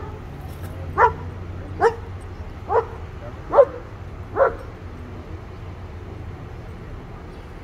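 A dog barking in single short barks, about one a second, six times, then stopping about halfway through.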